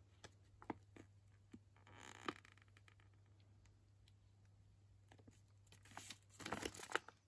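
Faint crinkling and rustling of a plastic dog-treat pouch being handled and turned over in the hands, with a louder spell of rustling near the end. A steady low hum sits underneath.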